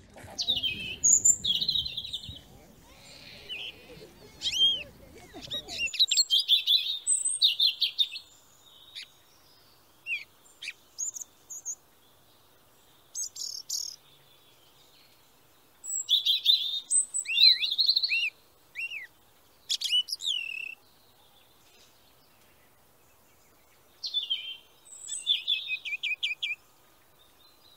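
Small songbirds chirping and singing in short, high-pitched bouts, with quick rising and falling notes and brief pauses between them.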